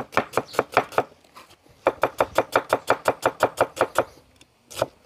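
A knife chopping food finely on a board in quick, even strokes, about seven a second. There are two runs with a short break about a second in, then a single chop near the end.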